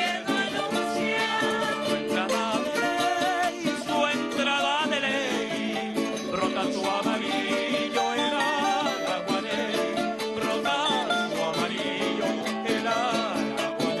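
Traditional eastern Venezuelan folk song from a mixed chorus of men and women, sung with a steady accompaniment of strummed and plucked guitar-type strings.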